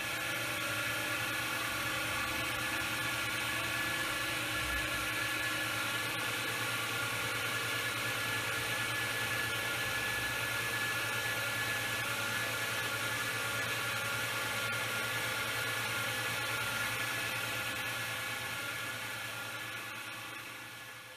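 CNC milling machine cutting aluminum: a steady whir with several held high tones from the spinning cutter, fading out near the end.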